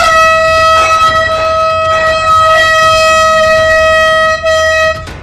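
Air horn blasting one long, loud, steady note for about five seconds, dropping briefly into pitch as it starts and cutting out for an instant near the end.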